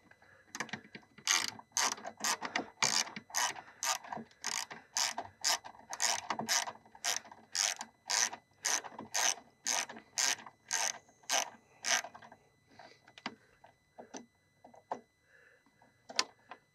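Socket ratchet clicking in a steady back-and-forth rhythm, about two to three short bursts of pawl clicks a second, as it backs out a 10 mm window-regulator bolt. After about twelve seconds it slows to a few scattered, fainter clicks.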